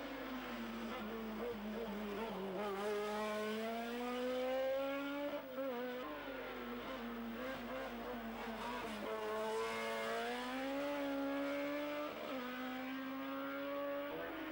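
Sports-prototype race car engine pulling hard uphill. The revs climb and then drop sharply a few times, about five seconds in and again about twelve seconds in, as the car goes up through the bends.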